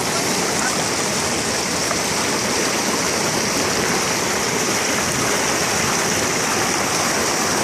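Steady rushing of a fast mountain stream or river over rocks, an even, unbroken roar of water.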